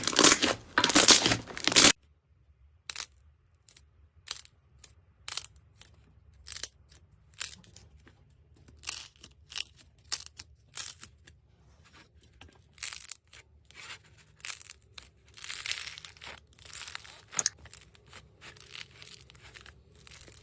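Slime being handled for ASMR. It starts with about two seconds of loud, dense crunching. After a cut come sparse sticky pops and crackles over a faint low hum, with a short run of denser crackling about three-quarters of the way through.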